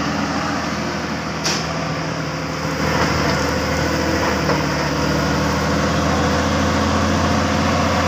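Tracked asphalt paver's diesel engine running steadily as the machine lays asphalt, with a single sharp click about one and a half seconds in.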